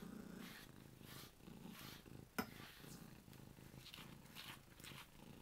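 Domestic cat purring softly while being brushed, a low pulsing rumble that rises and falls with each breath. A single sharp click sounds about two and a half seconds in.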